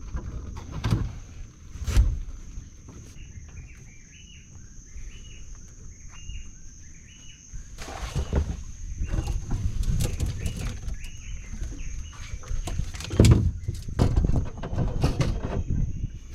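A bird calls a quick series of short rising-and-falling notes over a steady high-pitched drone, while scattered knocks and heavy thumps of handling gear come and go, the loudest about two seconds in and near the end.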